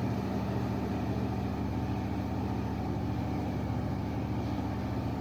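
Kohler 1020 kW generator set's DDC/MTU diesel engine running at a steady speed, an even, unchanging engine hum.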